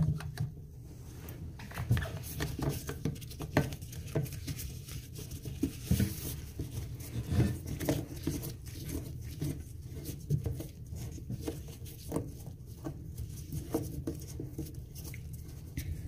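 Irregular small clicks, scrapes and rustles of a hand in a disposable plastic glove tightening the supply hose's coupling nut onto the fill valve shank under a toilet tank.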